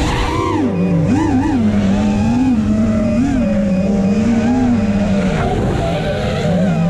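Racing quadcopter's brushless motors (Emax RS2205 2300 kv) and props whining, the pitch swooping up and down with throttle changes, with a dip about a second in.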